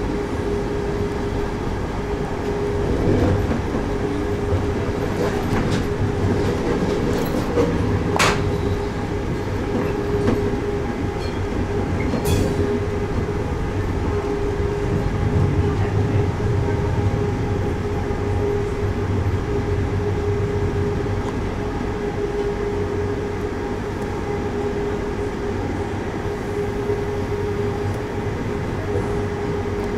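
Train running along the track, heard from on board: a steady hum from the drive with wheel-on-rail rumble. Two sharp clicks come about eight and twelve seconds in.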